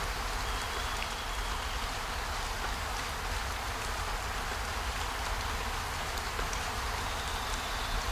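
Steady rain falling, an even hiss of drops with scattered faint ticks, over a low rumble.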